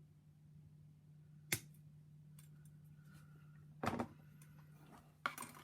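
A few sharp clicks and taps of small hard plastic model-kit parts and tools being handled: one about a second and a half in, a short cluster near four seconds and another near the end, over a steady low hum.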